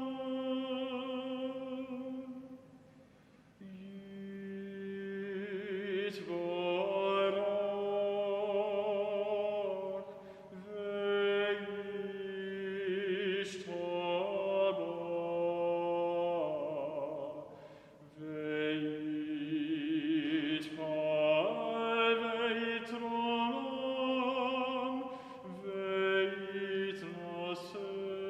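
Slow sung music: voices holding long notes with vibrato, phrase by phrase, with short breaks between phrases.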